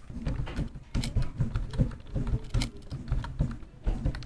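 Computer keyboard typing: a run of quick, irregular key clicks.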